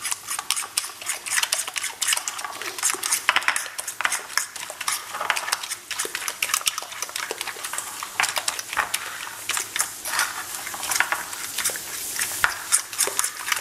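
Eggs being beaten by hand with a metal utensil in a ribbed glass bowl: a fast, continuous clatter of metal tapping and scraping against the glass.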